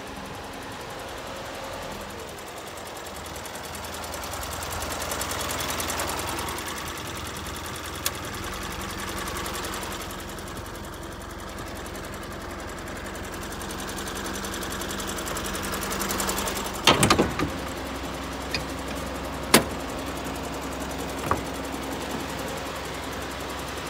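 Truck engine idling steadily. About two-thirds of the way through comes a quick cluster of clicks and a clunk as the cab door latch is worked and the door opens, then a couple of single sharp clicks.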